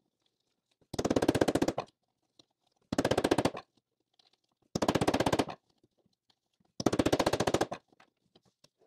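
Rapid bursts of hammer blows on a stainless steel window channel set over a 3D-printed PLA forming die, straightening out a bent section. There are four bursts of many quick strikes, each about a second long, with short pauses between.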